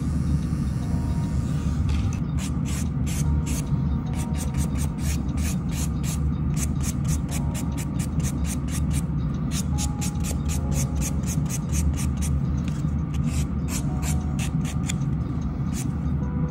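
Soft nail buffer rubbed back and forth over a natural fingernail in quick even strokes, about three to four a second, starting about two seconds in: an extremely light buff to take off surface staining. A steady low hum runs underneath.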